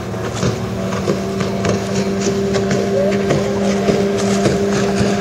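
1985 Mercury 25 HP two-stroke outboard running at a steady high speed, pushing a small hydroplane across the water, with irregular short knocks over the engine note.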